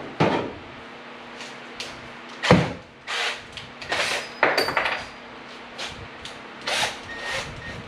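Irregular knocks, clunks and scrapes from handling tools and parts in a workshop, about half a dozen separate sounds, the loudest about two and a half seconds in.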